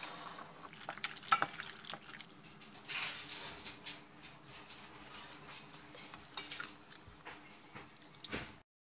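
A spoon stirring and scraping in a pot of pasta on the stove, with scattered clinks of the utensil against the pan, over a faint steady hum.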